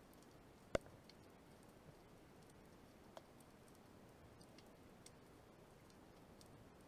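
Faint underwater background with scattered sharp clicks, one clearly louder just under a second in and a smaller one about three seconds in.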